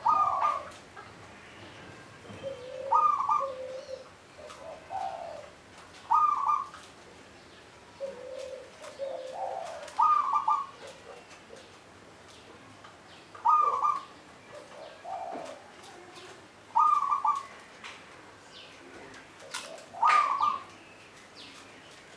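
Zebra dove (local Javanese perkutut) cooing: a repeated song phrase about every three seconds, seven in all, each with a loud higher note and softer lower coos between.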